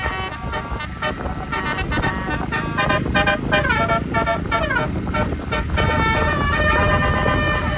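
Bus 'telolet' horn, a multi-trumpet air horn with 36 trumpets, playing a tune: quick short notes, sliding runs of notes in the middle, then longer held chords near the end, over the bus engine's low rumble.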